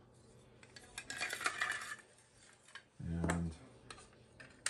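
Light clinking and scraping as a stainless steel extrusion tube and a plastic corkscrew auger are handled and fitted together, mostly about a second in, with a sharp click near the end.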